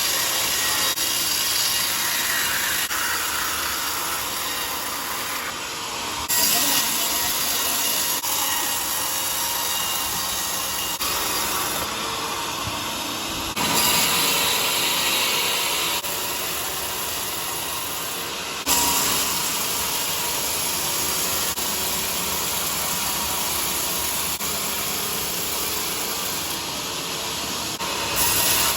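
Power saw cutting through teak wood with a steady noisy rasp. The sound changes abruptly several times, as if from one cut to another.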